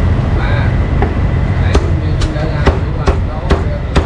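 A meat cleaver chopping roast meat on a chopping block: sharp, even chops at about two a second, starting a little under two seconds in, over a steady market rumble.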